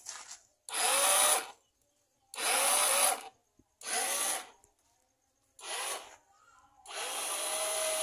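Small electric winch motor of a remote-controlled bird-cage hoist running in five short bursts, each spinning up with a rising whine and then cutting off, as it winds the cord.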